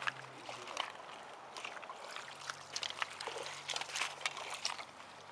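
Irregular splashes and clicks in shallow creek water over a faint steady low hum, as a hooked smallmouth bass is handled.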